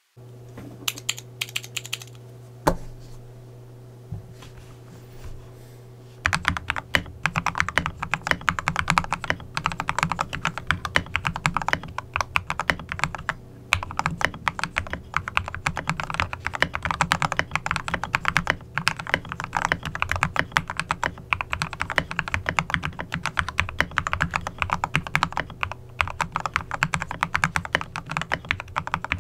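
Typing on a Royal Kludge RK98 mechanical keyboard fitted with lubed Gateron Yellow Pro linear switches, a three-layer tape mod and XDA-profile keycaps. A few scattered key clicks, then from about six seconds in a fast, continuous clatter of keystrokes, over a steady low hum.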